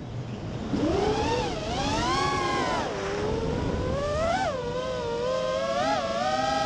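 Racing quadcopter's motors and propellers whining, the pitch sweeping up and down with the throttle. The whine drops away right at the start as the throttle is cut, comes back in under a second, and then rises and falls several times, with sharp peaks about four and a half and six seconds in and a climb near the end.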